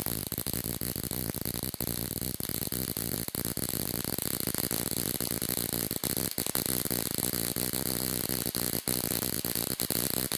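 Ruhmkorff induction coil running: a loud, steady, rapid buzz from its interrupter, with the spark crackling as it jumps the gap between the pointed brass electrodes. It drops out for an instant a few times.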